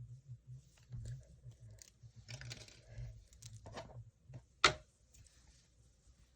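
Handling noise from unboxing a TMKB T68SE keyboard: brief rustling of packaging and scattered light clicks, with one sharp, louder click about two-thirds of the way through.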